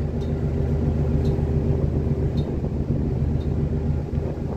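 Steady low drone of a river ship's engine, with a faint tick about once a second.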